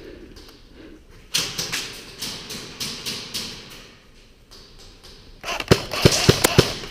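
A series of sharp clicks and knocks, irregular at about two to three a second, starting a little over a second in, with a cluster of louder, heavier knocks near the end.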